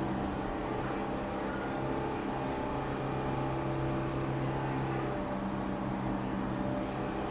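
A steady mechanical hum, as of a motor or engine running at a constant speed, holding one pitch with no change in level.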